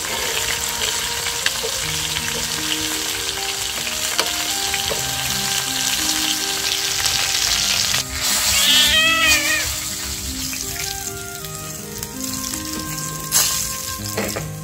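Chicken legs frying in oil in a wok, sizzling steadily, with the sizzle easing off after about ten seconds, over background music with a slow melody. About eight and a half seconds in, a brief high-pitched call cuts in, and a sharp click comes near the end.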